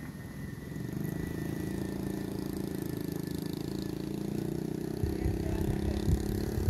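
A small engine running steadily, its hum getting louder about a second in. From about five seconds in, low irregular thumps on the microphone.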